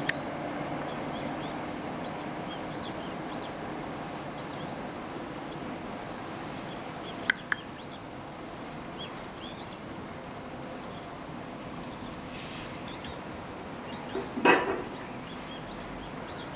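Small birds chirping again and again in short calls, over a low rumble that fades in the first few seconds. Two sharp clicks come about seven seconds in, and a brief louder call about fourteen seconds in is the loudest sound.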